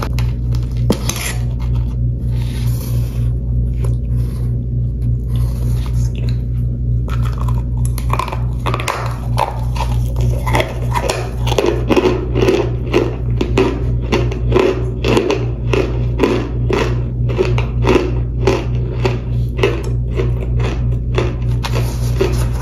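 Close-up crunching and chewing of toasted cornstarch chunks and powder. A metal spoon scrapes and clicks in the first several seconds, then a steady chewing rhythm of about two crunches a second sets in. A constant low hum runs underneath.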